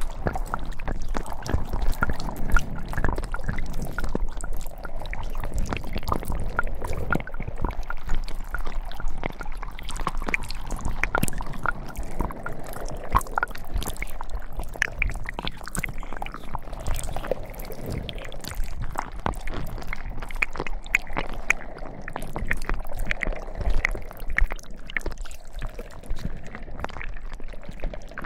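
Toy slime being squished and worked close to the microphone: a continuous wet squelching, full of small pops and crackles.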